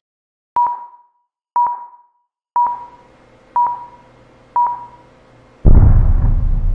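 Self-destruct countdown: five electronic beeps, one a second, then a loud explosion sound effect with a deep rumble about five and a half seconds in.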